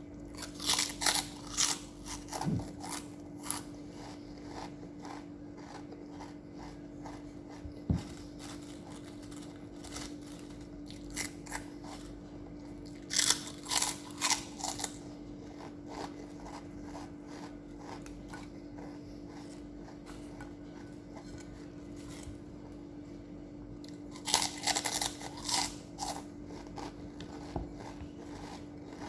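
Crunchy chewing of chicharon (fried pork rinds): three spells of crisp crackling bites, with quieter chewing between. A steady low hum runs underneath.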